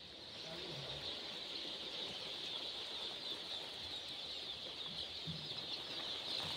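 Hundreds of Sonali chicks peeping together in a dense, continuous high-pitched chorus that grows a little louder about half a second in.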